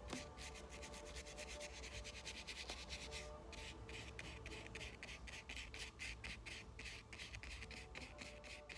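Bristle brush scrubbing thinned oil paint (white diluted with linseed oil) onto coarse linen canvas: a faint rasping rub in quick, even strokes, several a second.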